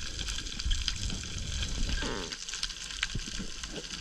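Underwater coral reef ambience heard through a camera housing: a dense, steady crackle of many tiny clicks typical of snapping shrimp, over a low rumble of moving water.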